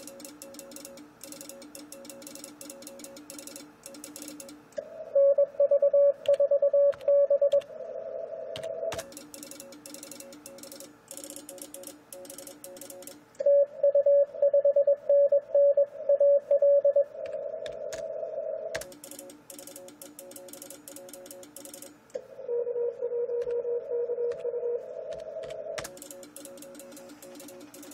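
Morse code from a ham transceiver: the Icom IC-756PRO III's CW sidetone keys out two loud runs of a steady beeping tone, about five and about thirteen seconds in. Between them come fainter Morse signals from other stations in receiver hiss, and stretches of quick computer-keyboard typing.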